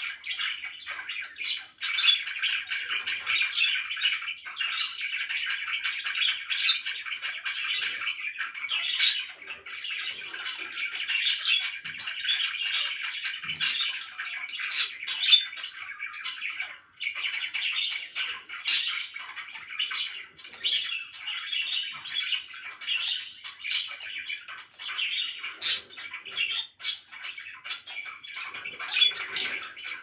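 A small flock of pet budgerigars chattering without a break, with frequent short, sharp chirps and squawks over the top.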